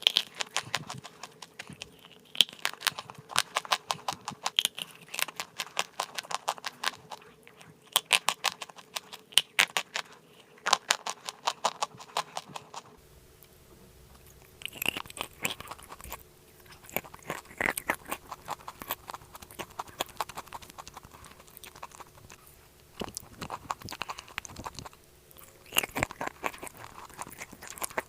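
Close-up biting and chewing of crunchy chalk clay, with rapid crackling crunches. They come thick and fast for the first half, then in sparser clusters after a break about halfway through.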